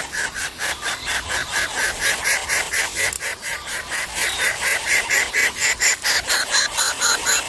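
Nestling birds begging for food: a rapid, unbroken series of short, harsh calls, about four or five a second, getting a little louder and brighter in the second half.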